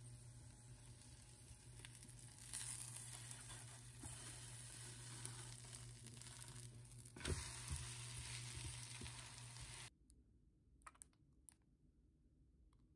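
Shredded cabbage and carrot sizzling in a nonstick frying pan as a spatula pushes it around, over a steady low hum. The spatula knocks against the pan once about seven seconds in. Near the end the sizzle cuts off abruptly, leaving only a few faint ticks.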